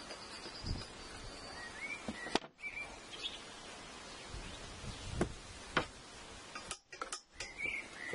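Outdoor garden ambience with a few short bird chirps. Several sharp clicks and a couple of low thumps sound through it.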